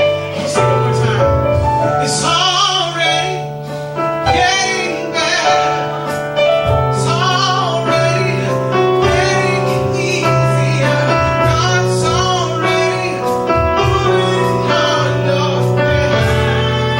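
Gospel choir singing, led by women's voices with vibrato, over instrumental accompaniment with long held bass notes.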